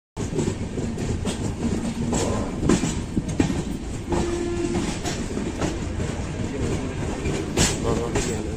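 Wheels of an express train's passenger coach clattering over rail joints, with a steady rumble of the running train, heard through an open coach door.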